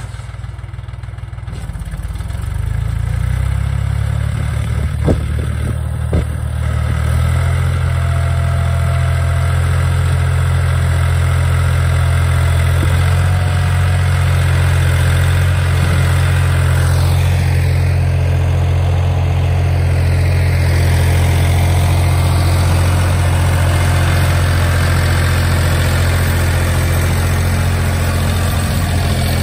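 DongFeng 244 mini tractor's diesel engine running steadily under power. It builds up over the first few seconds and settles into a louder, even run from about seven seconds in, with two sharp knocks along the way.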